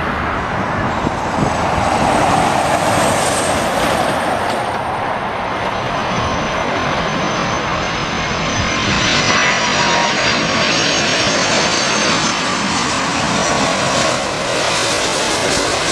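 Air Transat Airbus A330's twin jet engines on final approach with the landing gear down, passing low overhead: a steady rushing roar with a high engine whine that drifts slightly lower in pitch as it goes by.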